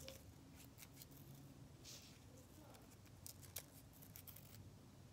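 Scissors faintly snipping through paper in short, scattered cuts, with a brief rustle of paper about two seconds in.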